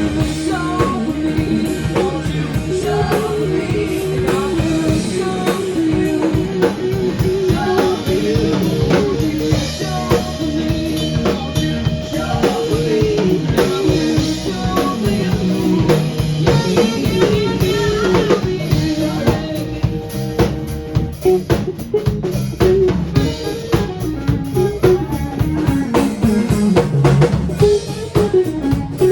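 A band playing a rock song: a drum kit with snare and bass drum keeping a steady beat under pitched instruments and singing.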